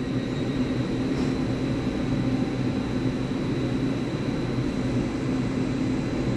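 Steady electrical hum of a stationary EMU3000 electric multiple unit idling at the platform, its onboard auxiliary equipment running, with a thin high whine over it.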